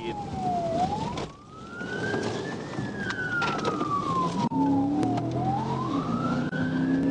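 Police car siren in a slow wail, its pitch rising, falling and rising again, over the squad car's engine and road noise.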